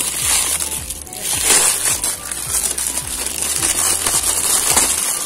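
Tape-wrapped cardboard packaging being torn and crumpled by hand, in rough rasping bursts, over background music with a steady beat.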